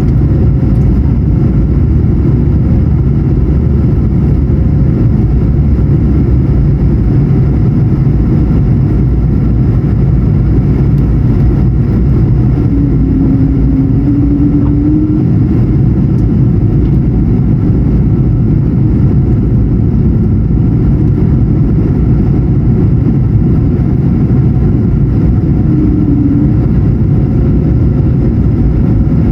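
Steady cabin roar of an Airbus A220-100 in flight, its Pratt & Whitney geared turbofans and the rushing airflow heard from a window seat, deep and unchanging. Two brief faint hums rise out of it about halfway through and again near the end.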